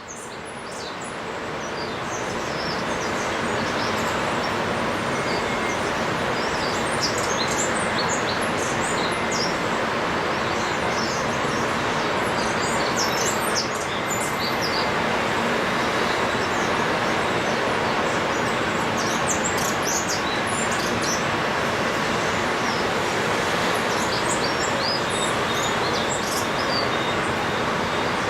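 Small birds chirping and twittering in many short, quick calls over a steady rushing background noise, sped up to 1.5 times speed. The sound fades in over the first few seconds.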